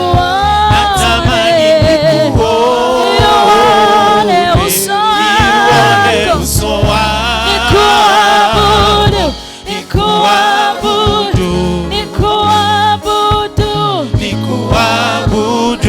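Gospel worship song with singing over a steady bass line, played during prayer.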